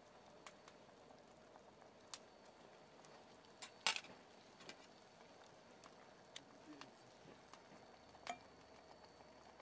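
Chicken sukiyaki simmering faintly in a pot on a camp gas burner, with light clicks of chopsticks and a metal ladle against metal bowls. The loudest clink comes about four seconds in.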